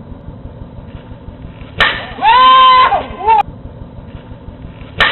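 A sharp pop followed by a loud, drawn-out shouted call that rises, holds and falls, heard twice: once about two seconds in and again at the end.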